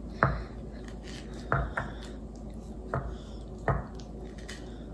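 Silicone spatula knocking and scraping against a bowl while stirring ice cream: about five short knocks at uneven intervals.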